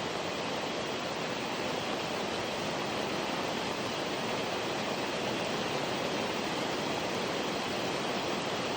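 Rain falling steadily, a continuous even rush with no single drops or knocks standing out.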